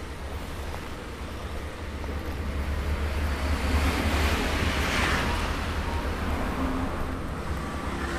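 Steady low hum of an industrial sewing machine's under-table motor running, with a broad rushing noise that swells to its loudest about five seconds in and then fades.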